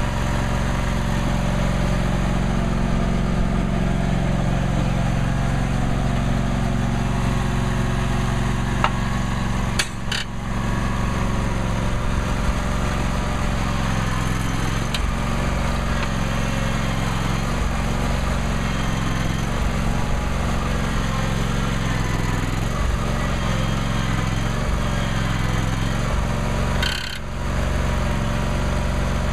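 John Deere X300 lawn tractor engine running steadily as the front shovel pushes and scrapes up sod and soil. The engine's pitch dips and recovers several times under the load. Its sound cuts briefly about ten seconds in and again near the end.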